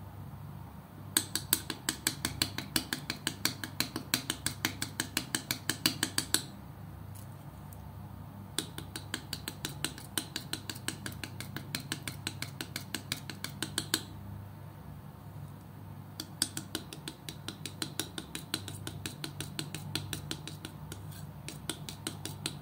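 Metal palette knife mixing thick acrylic paint on a board: quick sticky clicks and taps, about five a second, in three runs of several seconds with short pauses between, the first run the loudest. A steady low hum lies beneath.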